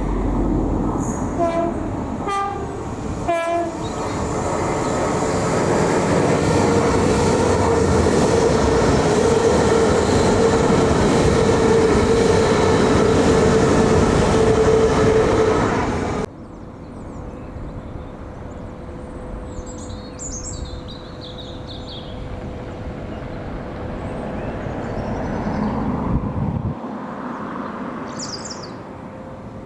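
A train passing close, sounding its horn in three short blasts about a second apart, then running loud and steady with a held drone. About halfway through the sound cuts off abruptly to a much quieter low rumble with a few brief high chirps.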